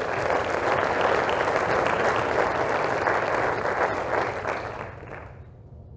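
Audience applauding in an auditorium, starting right after a name is called and dying away after about five seconds.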